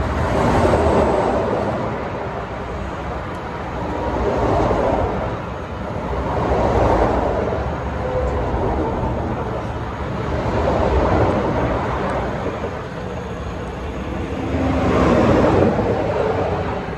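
Freeway traffic going by, a vehicle swelling past and fading about five times over a steady low rumble.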